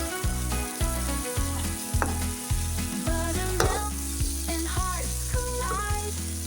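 Vegetable and chicken fried rice sizzling as it is stirred in a hot pan. Under it plays a background song with a steady beat and bass line, with a melody bending in pitch a few seconds in.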